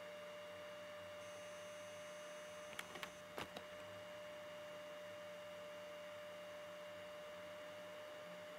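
A faint, steady pure tone with a low hum beneath it, broken only by a few small clicks about three seconds in.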